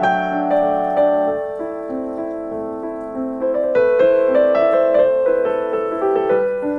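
Background piano music: a gentle melody of held notes over a steady chord.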